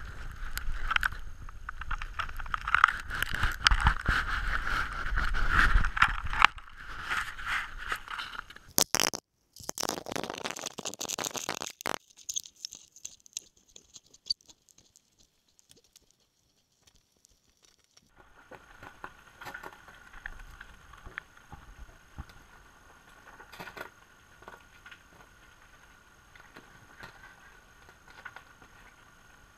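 Muffled scraping and knocking picked up through a GoPro's waterproof housing as the camera is handled on the ice. It cuts off abruptly about nine seconds in. After a short noisy stretch it falls almost silent, and from about eighteen seconds there is only a faint muffled hiss with occasional light ticks as the housing hangs under the water.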